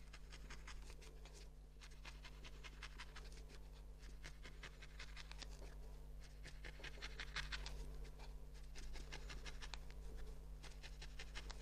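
Felting needle stabbing rapidly into wool: quick, soft, scratchy pokes, several a second, in bursts of one to two seconds with short pauses between.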